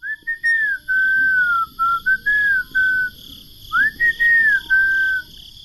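A whistled tune: a string of clear, pure notes gliding up and down, in two phrases with a short pause between them.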